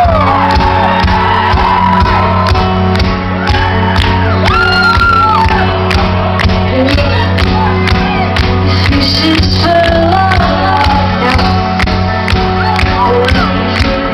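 A live synth-pop band playing a song opening with a steady pulsing bass line, drum beat and keyboards, heard loud from the audience, with fans whooping and shouting over the music.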